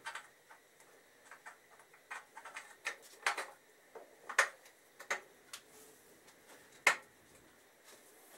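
Irregular metallic clicks and knocks of a motorcycle rear shock absorber being worked into the top shock mount of a Suzuki Hayabusa frame, with a few sharper knocks among lighter taps.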